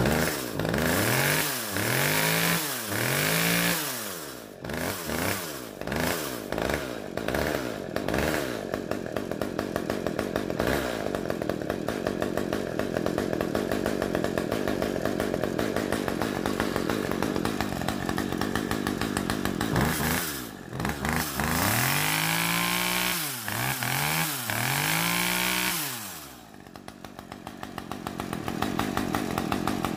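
Two-stroke chainsaw engine running: revved up and down several times at the start, then running steadily, revved a few more times about twenty seconds in, then dropping back to a pulsing idle near the end. The idle had been running weak, and the idle speed is being turned up a little.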